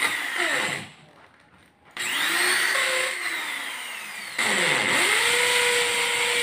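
Electric drill run in short trigger pulls: a brief spin, a gap, then a longer run that speeds up and slows, then a run that winds up quickly and holds a steady whine.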